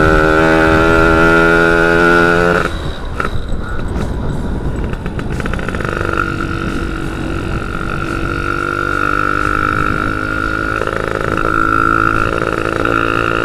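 Yamaha F1ZR's two-stroke single-cylinder engine under way, holding a steady high note, then falling off as the throttle closes about two and a half seconds in. It picks up again about six seconds in, its note slowly rising as the bike accelerates.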